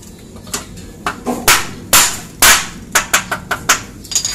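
Hammer blows, about a dozen in an uneven rhythm, the heaviest ones near the middle, struck at the foot of an aluminum sliding door frame during its installation.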